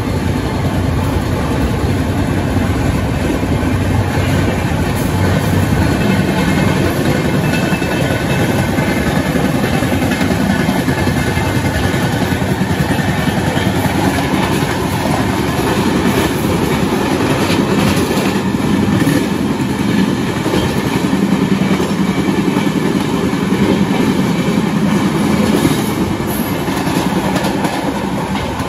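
Passenger train coaches running at speed: a steady, loud rumble of wheels on the track, heard from the open doorway of a moving train with a second train running close alongside on the parallel track.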